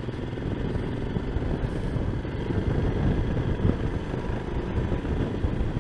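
Motorcycle riding along, its engine noise mixed with steady wind rush on a microphone fitted with a deadcat wind cover.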